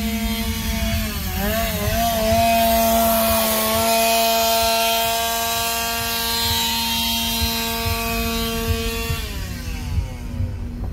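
A two-stroke chainsaw, heard from inside a car. It revs unevenly at first, is then held at a steady high-pitched full throttle, and winds down with a falling pitch about nine seconds in.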